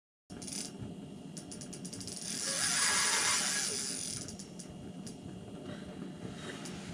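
Fishing reel's loosened drag ratcheting fast as a fish pulls line off it: a bite on the set line. It swells to its loudest about three seconds in, then eases off.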